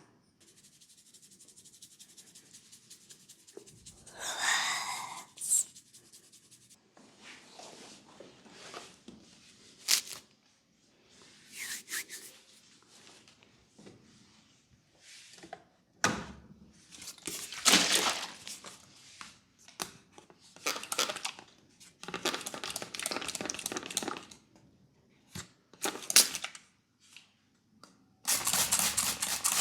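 Hands working over hair and skin in a head massage: a series of separate rustling, rubbing and tapping sounds with short pauses between, ending in a fast, even patter.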